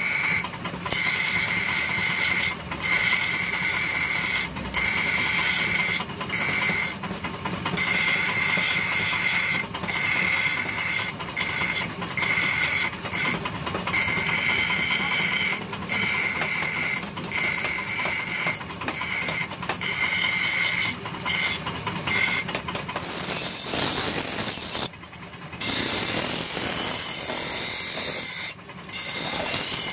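Steel axe head pressed against a spinning abrasive grinding wheel: a loud, steady high-pitched grinding screech, broken again and again by short gaps. In the last few seconds the screech fades into a rougher, more even grinding noise.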